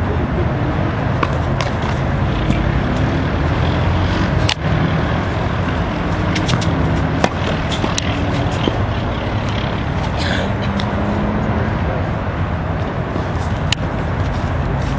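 Tennis balls struck by racquets during a doubles rally, heard as scattered sharp knocks over a loud, steady low rumble of background noise.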